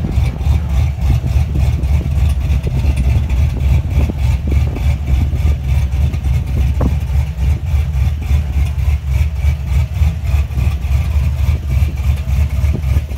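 2010 Chevrolet Silverado's 5.3-litre V8, fitted with a Brian Tooley Stage 2 camshaft, Texas Speed headers and a tune, idling with an uneven, pulsing beat, the choppy idle typical of a big aftermarket cam.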